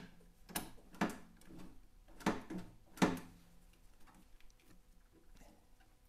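A handful of sharp knocks and rattles, about five in the first three seconds, some with a short low ring, then only faint clicks. They come from the newly secured wiring loom being moved by hand against the kit car's chassis tubes and panels, checking its slack clear of the prop shaft.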